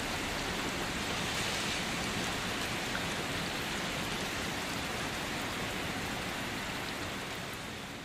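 Steady rain falling, an even hiss of drops on surfaces, starting to fade out near the end.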